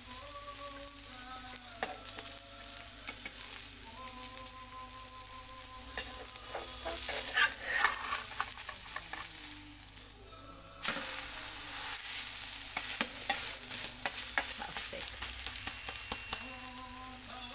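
An egg omelette sizzling steadily as it fries in an aluminium pan, with a metal spatula clicking and scraping against the pan, loudest about seven seconds in. The sizzle drops out briefly about ten seconds in.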